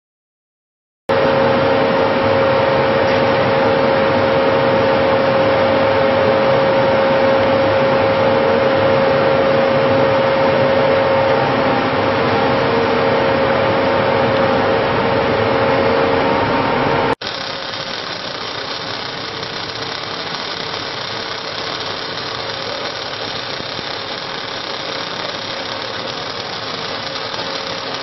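Light-pole welding machine running: a loud, steady machine hum and hiss with a steady whine. It cuts off abruptly about 17 seconds in and is replaced by a somewhat quieter steady running noise.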